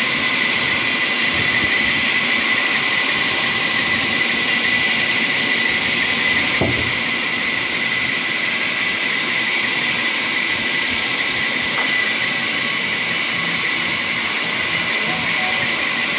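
Sawmill machinery running steadily, a loud even hiss with a high whine. There is a single short knock about six and a half seconds in.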